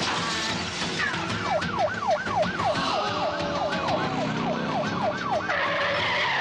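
A siren yelping in quick rising-and-falling sweeps, about three a second, as part of a night city street soundtrack. A steady tone takes over near the end.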